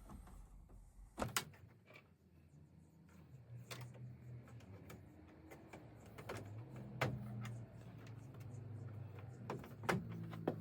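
Scattered clicks and knocks of tools and plumbing fittings being handled, four or five sharp ones, over a low steady hum that starts about three seconds in.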